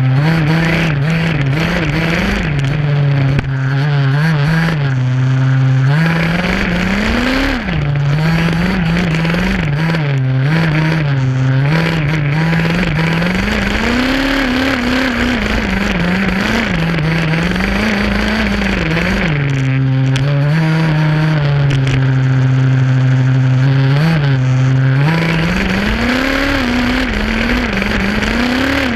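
Small two-stroke gasoline engine of an HPI Baja SS large-scale RC buggy running close to the onboard camera, its pitch held level for stretches and rising and falling again and again as the throttle is worked.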